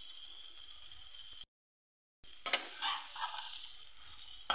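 A wok of kala chana ghugni sizzling steadily, with the gas just turned off, as dalmoth is added. The sound cuts out briefly about a second and a half in. It then comes back with a spatula scraping and stirring through the mixture.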